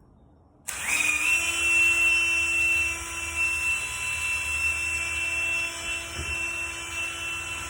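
Electric drill starting about a second in with a quick spin-up, then running steadily with a high whine as a large bit bores out the lock hole in a metal door.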